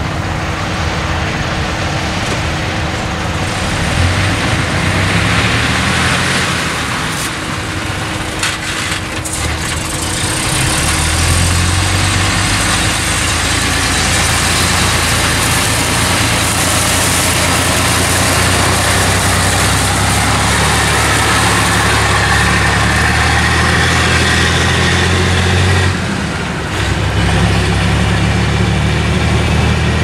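Heavy diesel truck engine running steadily. The engine note drops briefly near the end, then comes back.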